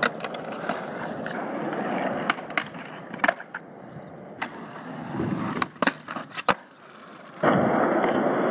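Skateboard wheels rolling on concrete, broken by sharp clacks of the board striking the ground and box. The loudest clacks come right at the start and about three seconds in. The rolling fades in the middle and comes back louder near the end.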